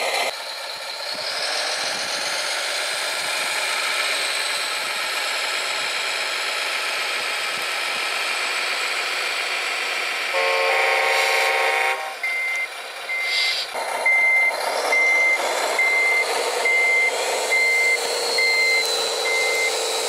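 Electronic truck engine sound from an RC model's sound module, running throughout. About ten seconds in, a multi-tone horn sounds for about a second and a half. After that a reversing beeper repeats roughly every 0.8 seconds.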